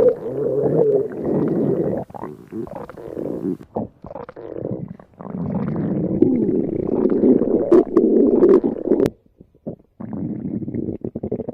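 Hungry stomach growling: long gurgling rumbles broken by short gaps, dropping away about nine seconds in before a quieter, fluttering rumble.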